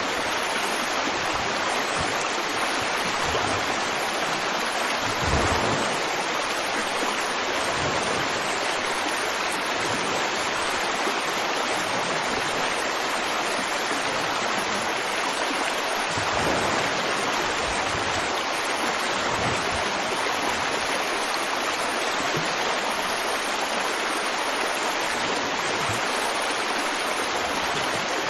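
River water flowing over rocks: a steady, even rush.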